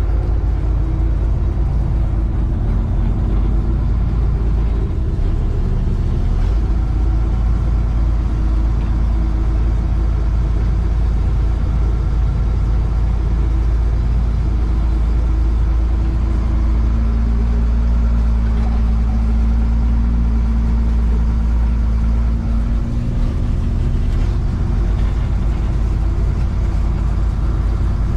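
Heavy farm machinery running steadily during corn silage chopping: a loud, deep engine drone with steady engine tones that hold throughout.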